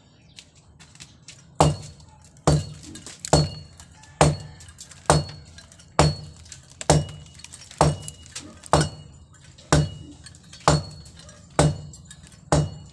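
Steady hammer blows, metal striking a hard surface about once a second, thirteen strikes in all, each with a short metallic ring.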